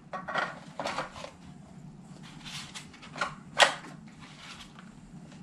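Hard plastic clicks and scrapes of an EGO battery pack being handled and slid onto a 12V converter adapter: a string of short knocks, the loudest a little over halfway through.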